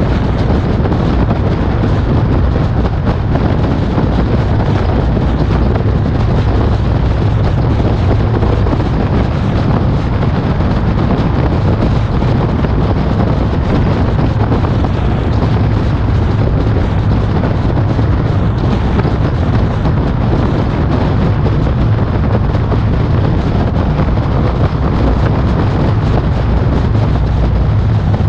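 Steady wind rumble on the microphone of a camera mounted on the bonnet of a car driving at speed, with the car's road and engine noise beneath it.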